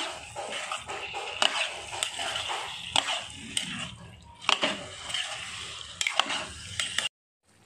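A metal spoon stirring boiled potatoes and black chickpeas through a wet gravy in a kadhai, scraping the pan with sharp knocks against its side every second or so. The sound cuts off suddenly near the end.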